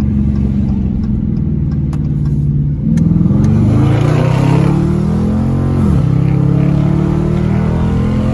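2020 Dodge Challenger R/T's 5.7-litre HEMI V8 with the mid muffler deleted, heard from inside the cabin. It cruises steadily, then about three seconds in the throttle opens and the exhaust gets louder. The revs climb, drop at an upshift near six seconds, and climb again.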